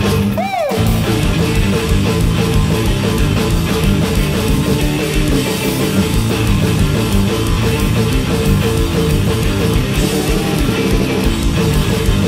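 Heavy rock duo playing live: electric guitar riffing over a full drum kit with crashing cymbals, a brief swooping pitch bend about half a second in.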